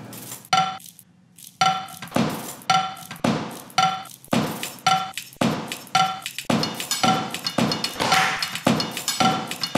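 Opening theme's percussion: a steady beat of sharp knocks, about two a second, many with a short ringing tone.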